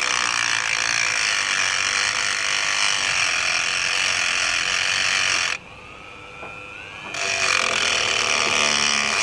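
Rotary multi-tool with a cut-off disc grinding through a metal hose clamp, a high-pitched steady cutting noise. About halfway through it eases off the work, and the motor's whine rises as it spins up. About a second later it bites in again.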